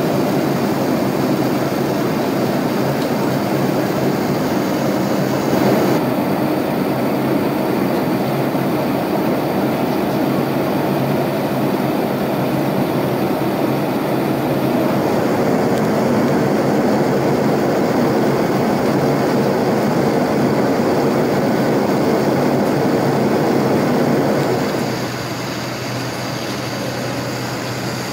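Steady cabin noise of a Boeing 787-9 airliner in flight: an even rush of engine and airflow noise with a low hum under it. It changes character abruptly three times, and is somewhat quieter over the last few seconds.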